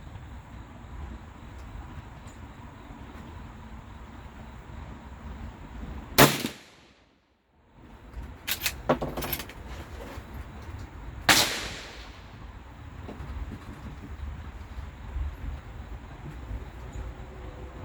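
Gunshots: a loud shot about six seconds in, after which the recording drops out for over a second, a few fainter cracks around nine seconds, and another loud shot about eleven seconds in. A steady low rumble runs underneath.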